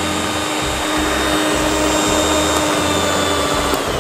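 Electric hand beater on its stand whipping cake batter, its motor running steadily with a whine; it stops near the end.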